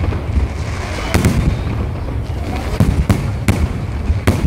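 Aerial firework shells bursting overhead in quick succession: a continuous rumble of detonations with irregular sharp cracks a few times a second.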